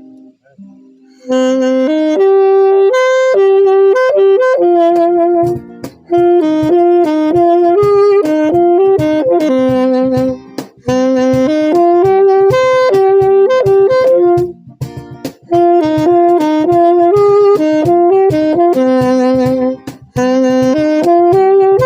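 Saxophone playing a song melody in sung-length phrases, with short breaks between phrases, over a steady rhythmic accompaniment. The melody comes in about a second in.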